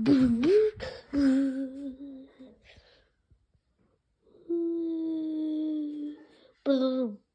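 A person humming and making drawn-out wordless vocal sounds: a quick rising glide at the start, a steady hum, a pause, then a long held note and a short falling note near the end.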